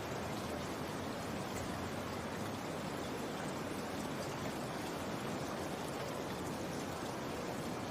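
Steady rainfall: an even, constant hiss with faint scattered drop ticks and no change in strength.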